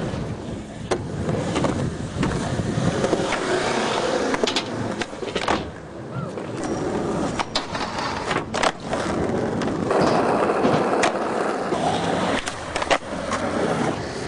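Skateboard wheels rolling on concrete and asphalt, broken by repeated sharp clacks of the board popping and landing, with scraping as the board slides along a box and a rail.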